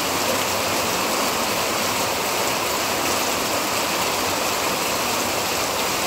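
Heavy monsoon rain falling steadily, an even hiss with no breaks.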